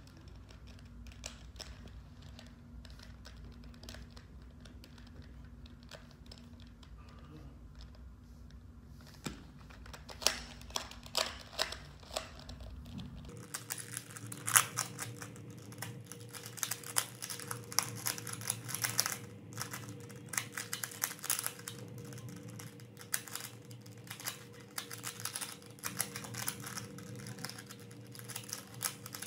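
Plastic 3x3 Rubik's cube being turned by hand, its layers clicking and clacking: sparse, scattered turns at first, then from about 13 seconds in a fast, dense rattle of turns played back at double speed.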